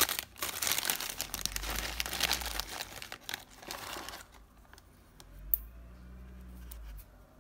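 Clear plastic bag crinkling as hands dig through bagged resin kit parts. It is busy for about four seconds, then goes quieter, with a few light ticks and one sharper click.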